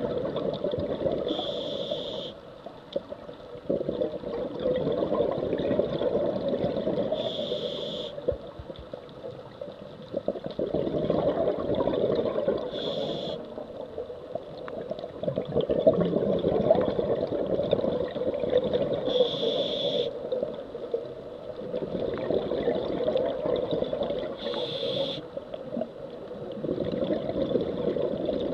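Scuba diver breathing through a regulator, heard underwater through the camera housing. Five short hisses of the regulator on the inhale come about every six seconds, each followed by a long bubbling rumble of exhaled air.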